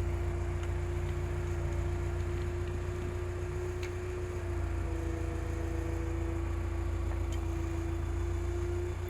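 Hydraulic excavator's diesel engine running steadily with a low rumble and a steady whine, the pitch dipping slightly about four seconds in.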